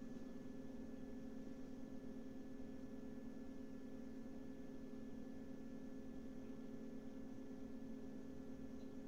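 Steady low hum with a few fainter held tones above it, unchanging throughout: room tone from an unattended recording setup.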